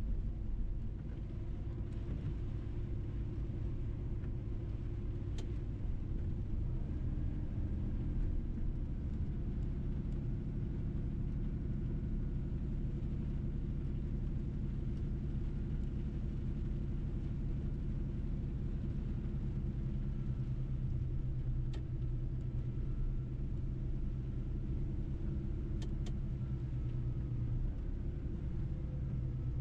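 Mercedes-Benz truck's diesel engine running steadily under way, with low road rumble and a few faint clicks.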